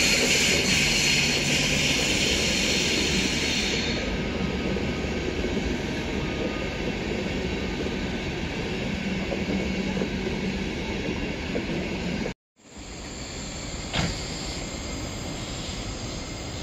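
Train running on rails: a steady rumble with a high hiss that stops about four seconds in. The sound cuts out for a moment past the middle, and a single sharp click follows.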